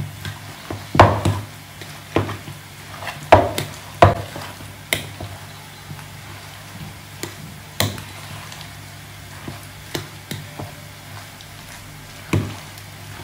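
Spoon stirring potato salad in a mixing bowl, with irregular knocks and scrapes of the spoon against the bowl. They come thickest in the first five seconds and only now and then after that.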